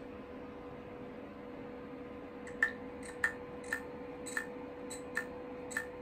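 Failing 2.5-inch hard drive in a G-Drive mobile USB enclosure clicking over and over, about two clicks a second, starting about two and a half seconds in over a steady hum. The clicking is the sign of a failing drive.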